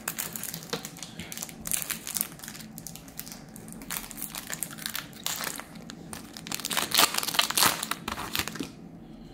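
Foil wrapper of a trading-card pack crinkling and crackling as it is handled and pulled open, loudest about seven seconds in, then quieter near the end.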